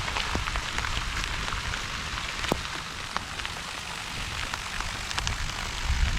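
Steady rain from a summer thunderstorm falling on plants and ground, a dense patter of individual drops ticking against it.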